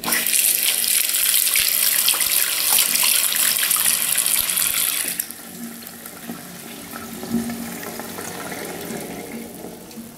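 Tap water running into a bathroom sink and splashing over a bar of soap on the drain, starting abruptly at full flow. About five seconds in it drops suddenly to a much quieter, uneven splashing and trickling.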